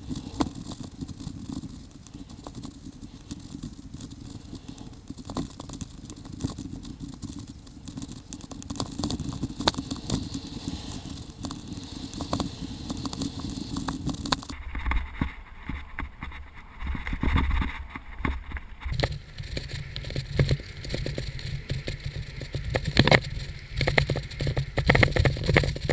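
Mountain bike being ridden over a rough dirt trail: constant rattling, clicking and knocking with tyre and wind noise, its character changing abruptly twice.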